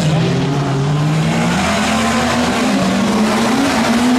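Tuff truck's engine running hard under load, its pitch climbing slowly with small dips, over a rough noisy roar.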